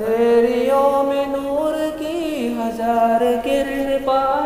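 A solo voice sings a naat, holding a long wordless melodic passage between lines with slow bends in pitch.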